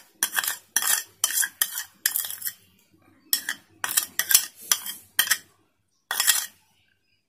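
Metal spoon scraping thick curd out of a plastic bowl into a steel mixing bowl: a run of short scrapes and clinks with brief pauses, stopping shortly before the end.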